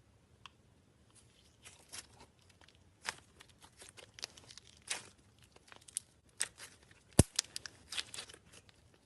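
Slime being squeezed and stretched by hand, giving irregular crackles and pops, with one sharp, louder pop a little after seven seconds in.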